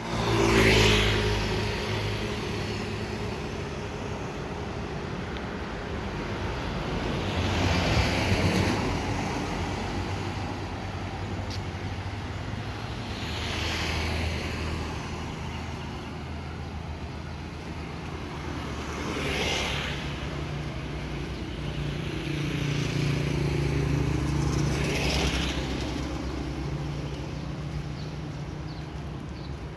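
Street traffic: motor scooters and other vehicles passing one at a time, about five pass-bys that each swell and fade, over a steady low engine hum.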